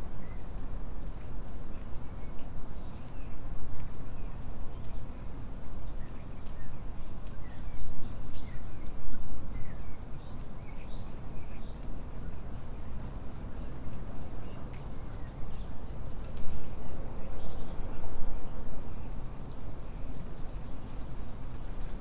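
Small songbirds chirping and twittering in many short, high calls scattered throughout, most busily from about three-quarters of the way in, over a loud, uneven low rumble of outdoor noise.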